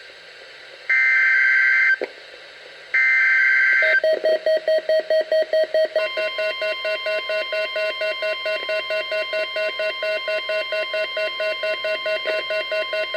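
NOAA Weather Radio SAME alert header: two one-second bursts of shrill digital data warble about a second apart. About four seconds in, rapid pulsed beeping starts, about four to five beeps a second. About two seconds later a steady 1050 Hz weather radio alert tone joins it, as the Required Weekly Test goes out.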